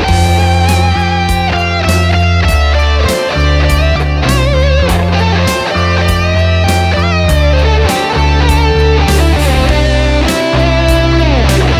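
Electric guitar playing a lead melody with vibrato and string bends over a backing track of bass and drums.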